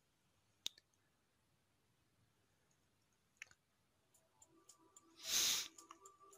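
Near silence with two faint clicks. Soft background music comes in about two-thirds of the way through, and a brief loud hiss or whoosh lands about five seconds in.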